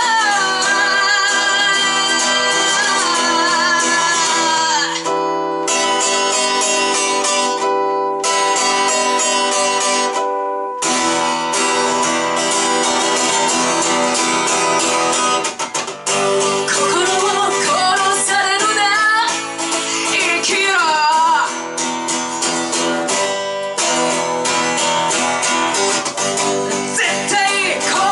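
Rock band playing live: guitar chords under a singer's wavering melody. The band stops together for short breaks about five, eight and ten seconds in, then plays on.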